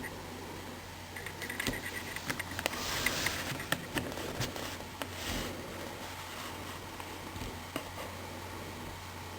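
Small clicks, taps and scraping from hands handling a portable media player and its parts, busiest in the first half, over a steady low hum.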